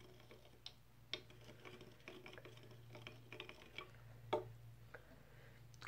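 A Fun Dip candy stick stirring a cup of water, giving faint, scattered light ticks and taps against the cup, the loudest about four seconds in.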